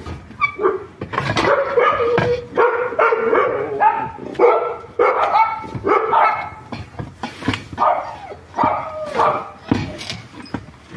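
A dog barking over and over, in short pitched barks about once or twice a second.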